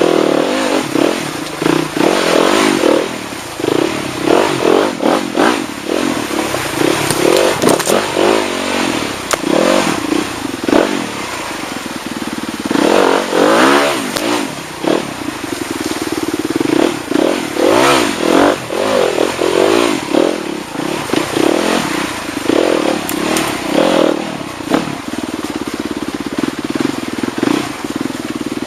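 Motorcycle engine being revved up and down again and again, the throttle opened in short surges over a steady running note.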